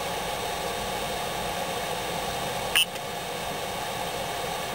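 Steady background hiss and hum. Nearly three seconds in, the Creality CR-10 control box's buzzer gives one short beep as its control knob is pressed to select a menu item.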